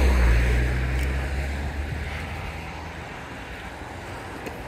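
A nearby SUV pulling away: a low engine and tyre rumble that fades over about three seconds, with wind noise on the microphone.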